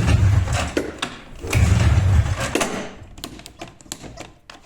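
Taiga 500 snowmobile's electric starter run in two short bursts of about a second each, the second starting about a second and a half in, failing to start the two-cylinder two-stroke engine: the starter pinion is not engaging. Quieter small clicks follow in the second half.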